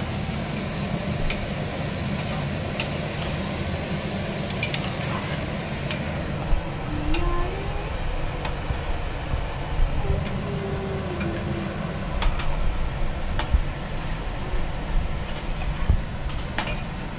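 Kitchen utensils clinking against dishes: scattered sharp clicks and clinks all through, over a steady low hum.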